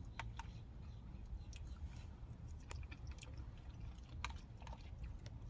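Close-miked chewing and mouth sounds of someone eating soft chili and cornbread: faint, irregular small wet clicks and smacks.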